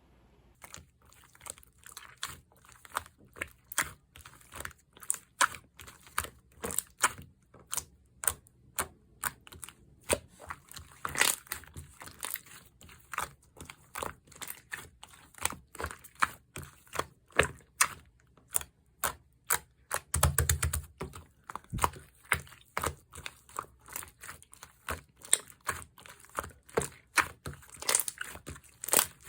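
Brown slime being squished and pressed by hand, giving an irregular run of sharp clicks and pops, a few a second, with one heavier, deeper thud about two-thirds of the way through.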